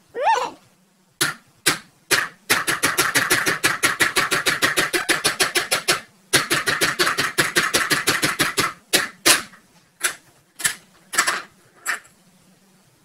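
Plastic pound-a-ball tower toy: a short falling squeak at the start, a few hard plastic knocks, then balls rattling down the ridged plastic ramps in two long runs of rapid, even clicking, about ten a second. A handful of separate clacks near the end as the balls drop into the base tray and settle.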